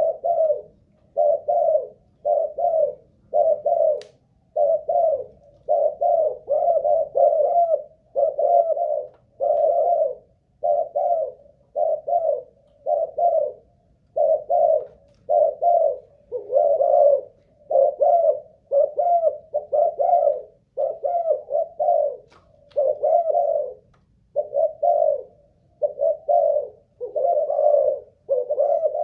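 Spotted dove cooing over and over, one coo phrase after another at about one a second with only short breaks, keeping up its song without stopping.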